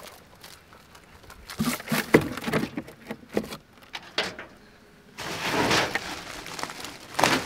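Rock lobsters and a salmon emptied from a mesh catch bag into a plastic cooler: a run of knocks and clatters against the cooler's floor and walls, then a longer stretch of rustling near the end.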